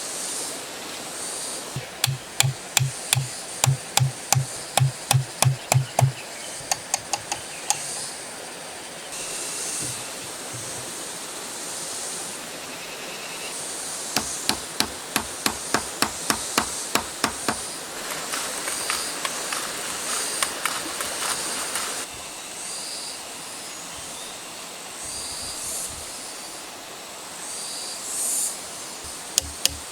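Hand woodworking: runs of sharp, even strikes, about three blows a second, and a stretch of rasping noise in the middle.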